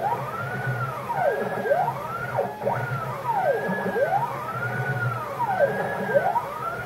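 Xylotex stepper motors of a home-built aluminium CNC router driving NSK ball screws around a circular spiral toolpath at about 2000 mm/min, moving through air with no spindle running. Their whine rises and falls in pitch, in overlapping sweeps about once a second, as the X and Y axes speed up and slow down around each circle.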